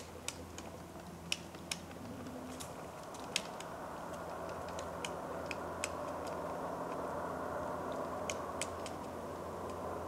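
Pileated woodpecker pecking and prying at tree bark: irregular sharp taps of its bill on the wood, several a second at times, with a pause of about two seconds before a last few taps near the end.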